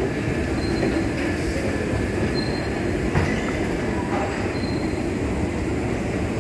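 Escalator running: a steady mechanical rumble, with a short high squeak every couple of seconds and a single knock about three seconds in.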